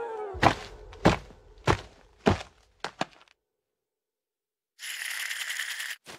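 Cartoon sound effects: four sharp thuds about half a second apart as the character crashes down, then two light taps. After a short silence, a hissing rush of noise lasts about a second near the end.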